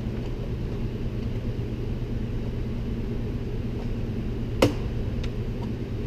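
Light metal clicks as a cotter pin tool levers a radio's sheet-metal mounting tabs over. One sharp click about four and a half seconds in is the loudest, with a couple of fainter ticks after it. A steady low hum runs underneath.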